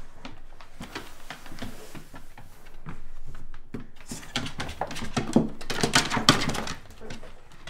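Australian Shepherd rubbing and scuffling its damp coat against a wooden door frame and floor: a run of rustles and small knocks, busiest and loudest from about four to six and a half seconds in.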